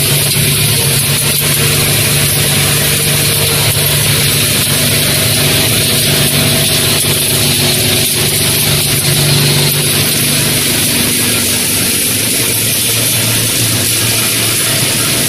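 Electric-motor rotor crushing and separating line running: electric-motor-driven belt conveyors and crushers make a steady, loud machine drone with a low hum and a high hiss.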